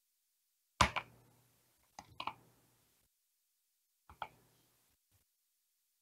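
Video game sound effects: three short, sharp impacts, each a quick double hit with a brief ringing tail, spaced about a second or two apart.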